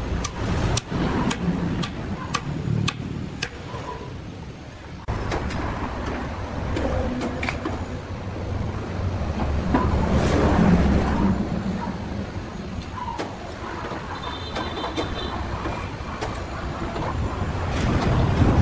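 Mallet blows on a large hardwood log, sharp knocks about two a second for the first four seconds. A steady low machine hum follows, louder around ten seconds and again near the end, as an overhead hoist takes up the log.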